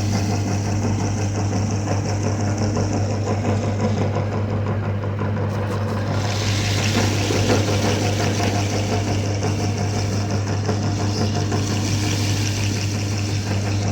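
Electric meat grinder running steadily with a strong low motor hum and a higher grinding hiss. The hiss thins for a few seconds and comes back stronger about six seconds in.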